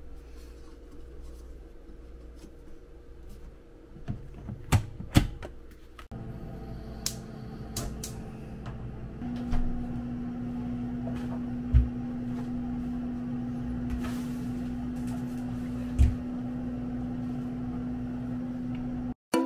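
Kitchen handling sounds: a few sharp clicks and clatters from the door and rack of an air-fryer oven, then a steady hum with two dull thumps as a frying pan and a bottle of oil are handled at a gas stove.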